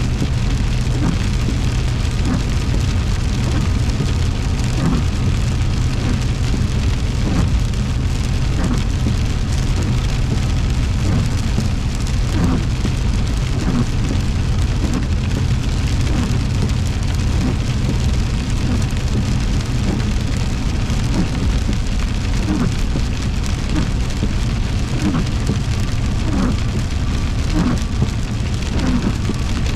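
Heavy rain pouring down on a car, heard from inside while driving, over a steady low rumble of road and engine.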